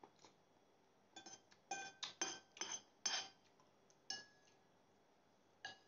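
Metal spoon and fork clinking and scraping against a plate while eating: a quick run of sharp clinks about a second in, then two more spaced out near the middle and the end.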